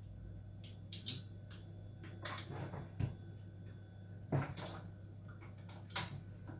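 Kitchen cupboard doors and drawers being opened, shut and rummaged through off to one side: a handful of knocks and short rattling clatters, the sharpest about three seconds in and just after four, over a steady low hum.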